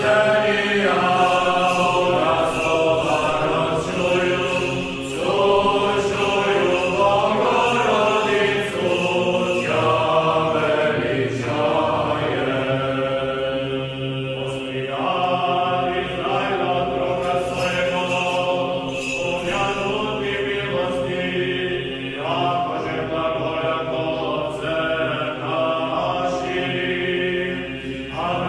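Background music: a chant sung by voices holding long notes in slow phrases over a steady low drone.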